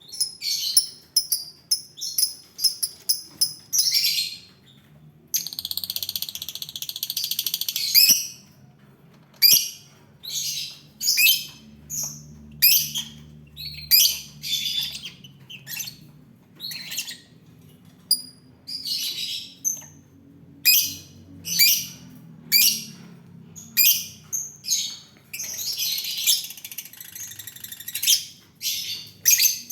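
Lovebirds calling: a rapid series of sharp, high-pitched chirps and squawks, with a longer stretch of continuous chattering about six seconds in and another near the end.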